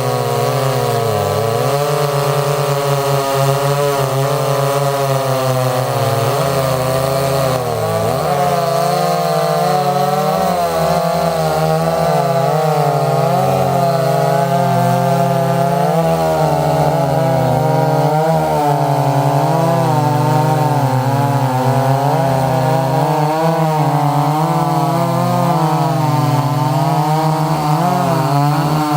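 Gas two-stroke chainsaw running hard at high revs throughout, its pitch repeatedly dipping and recovering as the chain bogs and frees in a cut through wood.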